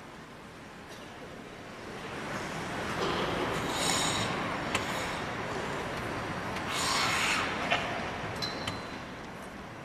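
Arena crowd applauding and cheering a figure skater as she takes her starting position, swelling about two seconds in and dying away near the end, with a few sharp cries on top.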